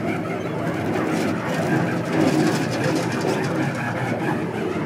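Steady low drone of a fishing boat's engine running.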